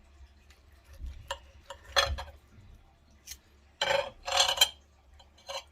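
Knife and fork clinking and scraping on a plate while cutting into a breaded chicken cutlet: a few sharp clinks, then two short scrapes a little past halfway, and one more clink near the end.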